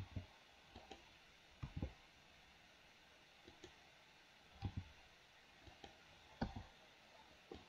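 Scattered clicks of a computer mouse and keyboard while bones are rotated and moved in 3D software, about a dozen at uneven intervals, several in quick pairs.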